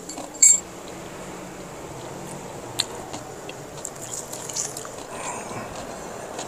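Quiet restaurant room tone with a short bright ringing clink about half a second in and a sharp click near three seconds, then a few faint crunches as a crispy fried samosa is bitten into.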